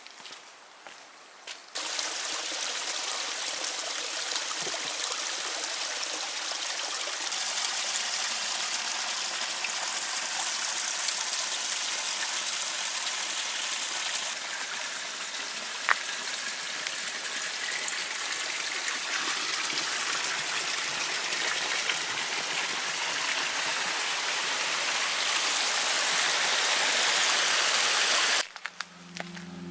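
A forest creek running, a steady rush of water that shifts in level a few times. Music begins near the end.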